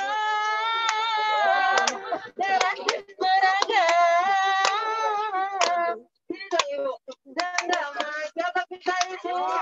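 A woman singing solo into a microphone, holding long wavering notes in two sustained phrases, then breaking into shorter phrases over the last few seconds.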